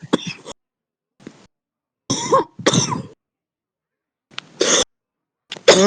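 A heavy smoker's cough: harsh coughs come in separate bouts, two close together about two seconds in, a single cough about four and a half seconds in, and another bout starting near the end.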